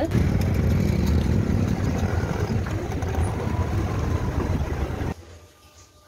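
Car interior noise while driving: a steady low rumble of engine and road. It stops abruptly about five seconds in, leaving quiet room tone.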